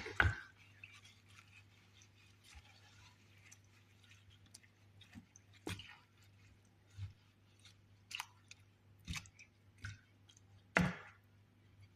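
A utensil stirring apple, lemon, ginger, cloves and mint leaves in a saucepan of water, with scattered knocks and scrapes against the pan and a louder knock near the end, over a low steady hum.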